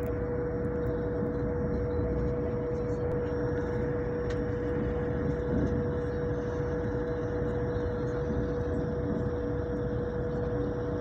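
Passenger train running at speed, heard from inside the carriage: a steady rumble with a constant hum.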